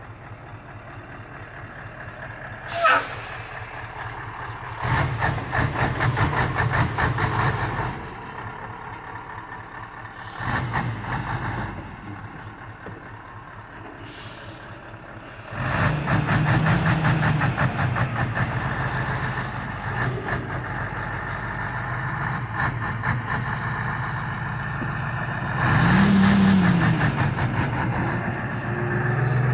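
Mercedes-Benz SK 2644 truck's diesel engine idling and being revved in several bursts, the pitch rising and falling twice in the last part. A brief sharp sound with a falling pitch stands out about three seconds in.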